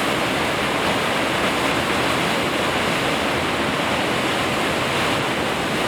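Waterfall: water plunging and crashing in a steady, loud rush.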